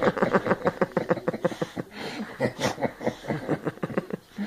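A person laughing in a quick run of giggles that thins out over the last couple of seconds.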